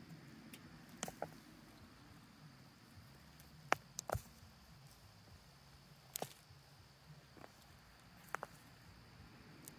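Faint sharp ticks and knocks of small stones and clods of soil being raked by hand into a planting hole, a handful of them, some in quick pairs, a second or two apart.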